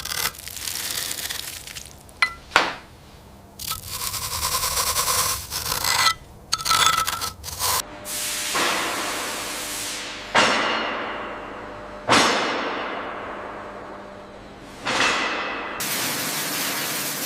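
Metal being worked on a rusted tank: clangs, scraping and sharp hits. Several loud sudden strikes each ring and die away over a second or two.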